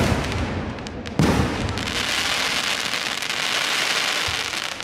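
Fireworks display: a loud bang right at the start and another a little over a second in, followed by a dense, continuous crackling of bursting shells and firecrackers.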